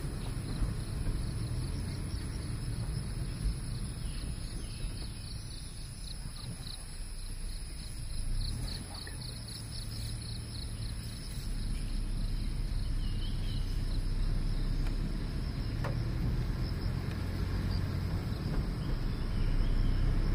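Forest insects, crickets among them, chirping and buzzing: rapid trains of short high chirps, loudest through the middle, over a steady high-pitched whine. A low steady rumble runs underneath.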